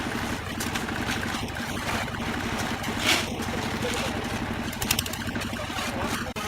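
An engine running steadily, with scattered short knocks and bursts of hiss over it.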